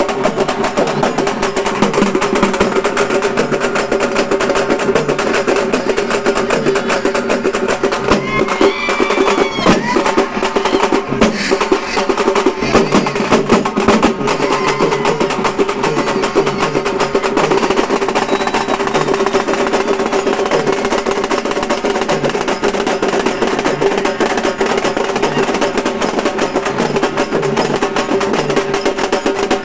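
Halgi frame drums beaten with sticks in a fast, unbroken rhythm, close to a drum roll, over a steady ringing tone.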